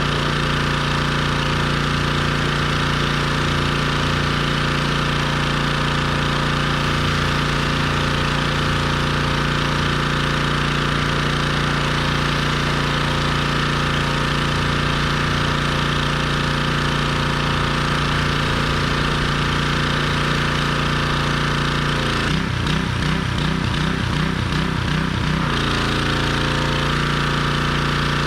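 Gas-engine pressure washer running steadily. About 22 seconds in, the engine note turns pulsing and uneven for three or four seconds, then settles back to a steady run.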